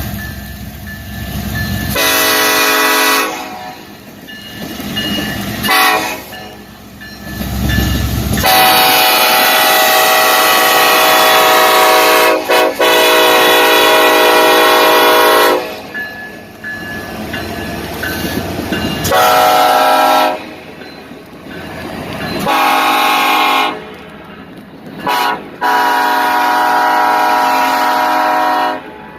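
Nathan Airchime K5 five-chime locomotive horn sounding a series of blasts: several short ones and one long blast of about seven seconds in the middle, each a chord of several tones. A low rumble fills the gaps between blasts.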